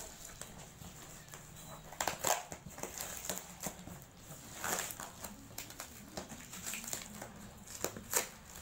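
Packing tape being peeled and ripped off a cardboard box, with the cardboard rustling under the hands. A few sharp rips come about two seconds in, around the middle and near the end.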